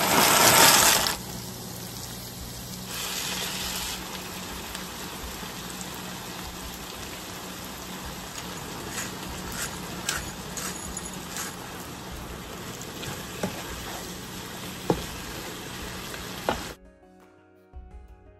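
Shrimp and chopped vegetables frying in olive oil and butter in a sauté pan: a steady sizzle with a few sharp clicks near the end. A loud rush of noise fills the first second. About a second before the end the sizzle cuts off suddenly and soft music takes over.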